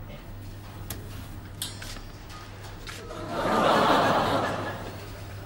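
Studio audience laughing, swelling up about three seconds in and dying away near the end; before that only a faint low hum and a few small clicks.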